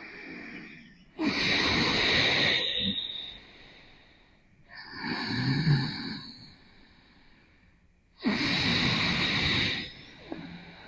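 Ujjayi breathing: a woman breathing slowly through a slightly constricted glottis, each breath a wave-like hiss a little like snoring. Three breaths of about two seconds each, separated by short silences.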